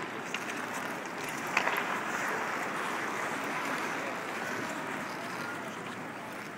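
Ice hockey game sounds in an arena: a steady wash of rink and crowd noise with a few sharp knocks, the loudest about a second and a half in.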